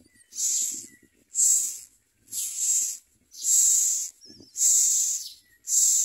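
Common myna nestlings begging: repeated hissing calls, about one a second, as the parent feeds them.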